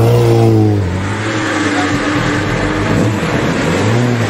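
Racing superbike engines running in the pit lane: one engine held at a steady fast idle for about the first second, then a mix of several engines idling with short revs rising in pitch.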